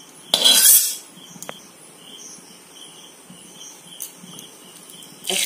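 A metal spoon scraping once against the kadai about half a second in, followed by a sharp tap and another near the end. Crickets chirp faintly in the background.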